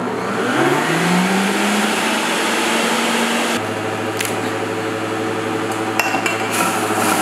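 Stainless-steel centrifugal juicer starting up, its motor whine rising in pitch over the first second or so and then running steadily. About halfway through its tone shifts, with a few sharp clicks, as celery stalks go down the feed chute.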